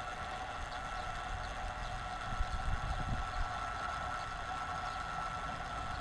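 Small electric gear motor of a home-built heliostat drive running steadily: a constant whine at two pitches over a low rumble.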